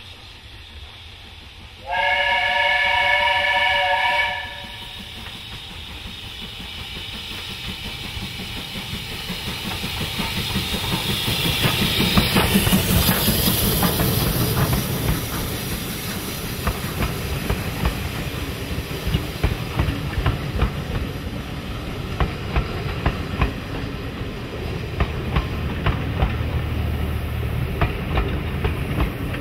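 A steam train's whistle sounds once, a steady chord held for about two seconds, then the train comes closer and passes, louder to a peak near the middle, and the carriage wheels keep clicking over the rail joints as the coaches go by.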